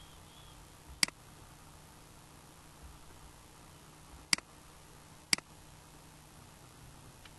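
Three sharp computer mouse clicks: one about a second in, then two a second apart around four and five seconds, over a faint steady hum.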